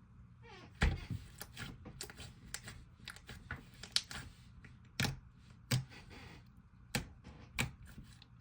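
Fluffy slime being squished, stretched and folded by hand, giving irregular sharp clicks and pops about once or twice a second.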